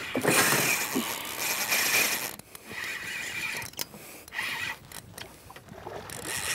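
Fishing reel ratcheting in several rasping bursts of about a second each, with short gaps between, as a hooked tripletail is played at the surface.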